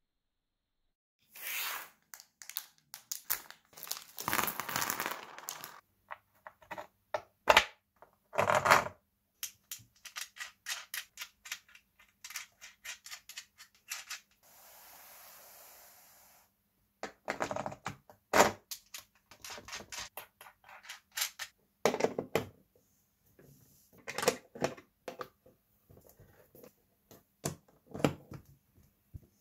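Hands working with small tools and objects: a long string of sharp clicks, taps and short scraping sounds, with a steady hiss lasting about two seconds about halfway through.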